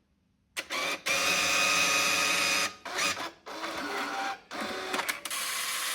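JCM UBA bill validator running through its power-up initialisation: its motors start whirring suddenly about half a second in and run in several stretches of a second or two, with short stops between.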